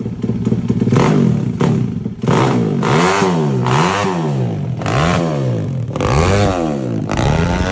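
Daytona 190cc four-stroke single-cylinder engine in a Honda ATC70 A+ frame, running loud. From about two seconds in it is revved up and down by hand at the throttle, about once a second.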